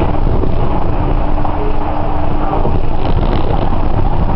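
Cabin running noise of a Port Liner rubber-tyred automated people-mover travelling at speed: a steady low rumble from the tyres and running gear, with a faint steady hum that comes and goes.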